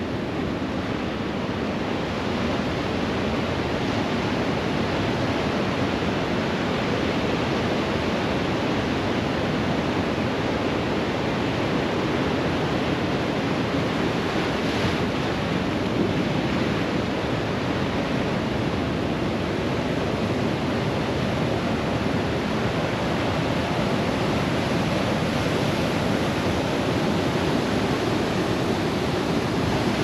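Pacific Ocean surf breaking and washing over rocks at the foot of a seawall: a steady rushing wash.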